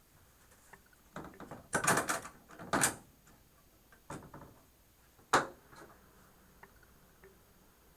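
Hand-handling noises on a workbench: a run of rustles and clatters in the first few seconds, a few softer ones later, and one sharp click a little past five seconds.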